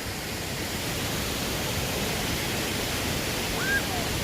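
Waterfall rushing steadily, an even hiss of falling water. Near the end a brief high tone bends up and then falls in pitch.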